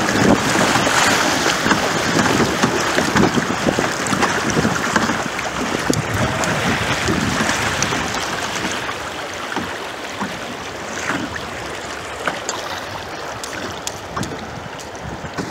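Rushing water of a creek riffle around a kayak: a steady, dense rush that is loudest in the first half and eases off after about nine seconds, with faint scattered knocks.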